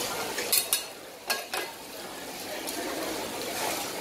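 Greens frying on a banana leaf on a hot flat-top griddle, with a steady sizzle. Metal ladle and spatula clack and scrape against each other and the griddle about four times in the first second and a half as the greens are stirred.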